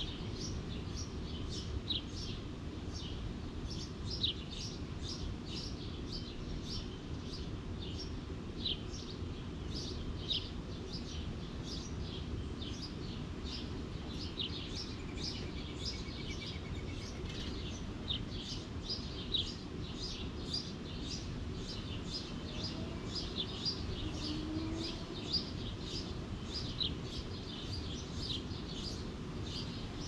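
Birds chirping: frequent short, high chirps throughout, over a steady low background rumble.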